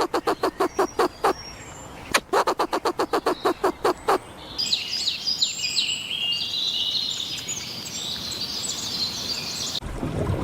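Two short runs of rapid rasping pulses, about ten a second, then birds chirping busily and high-pitched for about five seconds, stopping abruptly near the end.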